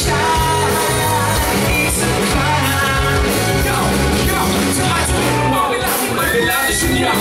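Live pop-rock band playing, with a male lead singer singing over electric bass, electric guitar, a drum kit and keyboard.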